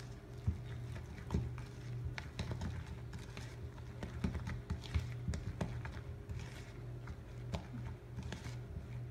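A spatula stirring thick, salt-laden hot process soap in a bowl: irregular scraping and clicking knocks against the bowl throughout, over a steady low hum.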